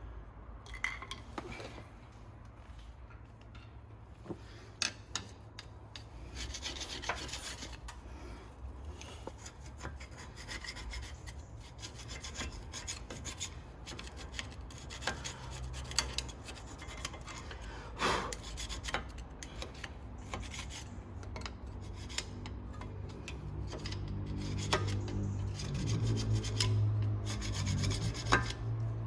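Rasping and scraping of a hand tool worked against the brake caliper and pads, broken by frequent sharp clicks and knocks; a low hum rises near the end.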